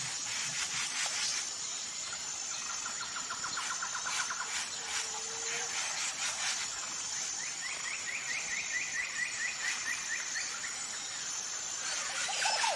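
Outdoor nature ambience: a steady high insect drone, with bird trills of fast repeated notes, a short one about three seconds in and a longer, higher one from about seven to ten seconds.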